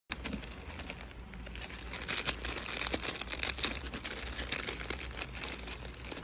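Thin plastic packets crinkling and rustling as a hand rummages through a stack of plastic-wrapped face masks.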